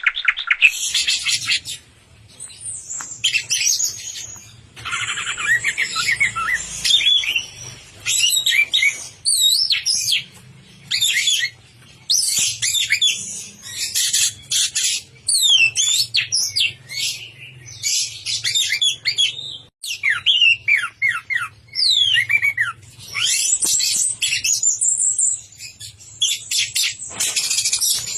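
Orange-headed thrush (anis merah) in full, continuous song: a varied run of fast whistled phrases, sweeps and trills following one another with only brief pauses, over a faint low hum.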